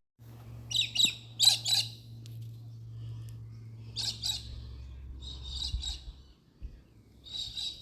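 Bird chirping: short bursts of rapid high chirps, five times, over a steady low hum that stops about six seconds in.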